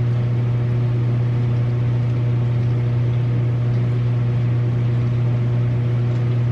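A steady low electrical or motor hum with a light hiss, unchanging throughout.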